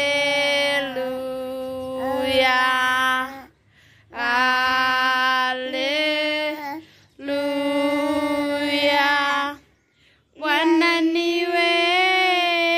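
A woman singing a worship chorus unaccompanied, in four long held phrases with short breaks between them.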